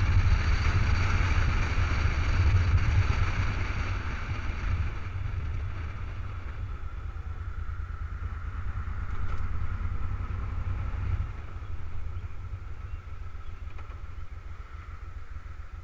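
Cruiser motorcycle engine running under wind noise on the microphone; both fade as the bike slows down. Near the end the engine's low, even firing pulses are heard more plainly.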